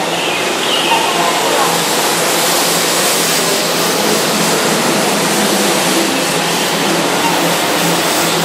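Keihan 2200-series electric train pulling out of a station, its wheels and motors running with a rushing hiss that builds from about two seconds in as it gathers speed past the platform.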